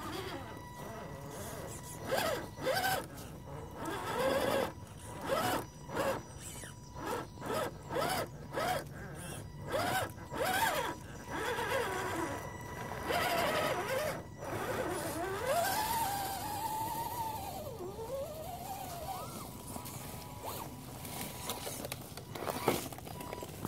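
Electric motor and gears of a scale RC crawler truck with a Defender 90 body whining as it climbs over a rock. It goes in short throttle bursts through the first half, then in longer sweeps that rise and fall in pitch, with scattered clicks and knocks.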